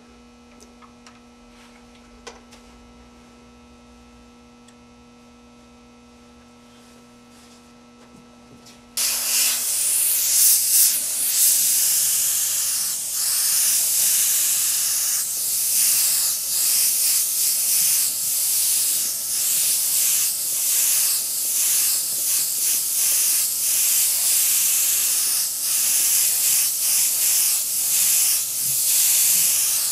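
Low steady electrical hum, then about nine seconds in an airbrush starts spraying: a loud hiss of air and paint through the airbrush that swells and eases every second or so and carries on to the end.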